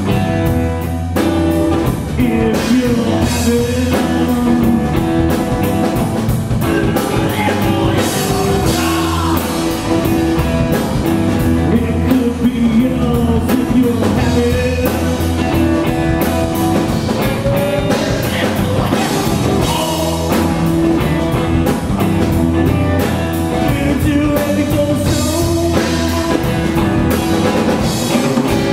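Live rock trio playing steadily and loudly: distorted electric guitar, electric bass and drum kit together, with no break.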